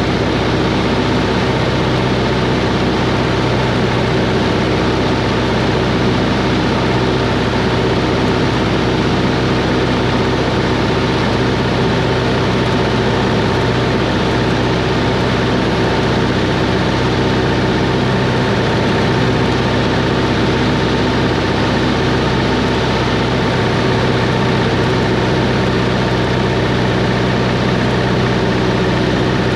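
Cessna 140's piston engine running at a steady, unchanging speed: a continuous drone with no change in pitch or level.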